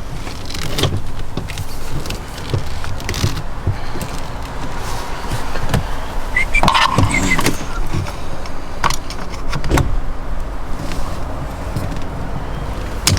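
Scattered clicks, knocks and rattles as a Ford Transit Connect steering wheel is turned round and a screwdriver is worked into the cutout behind it to release the airbag's retaining spring, over a steady background hiss.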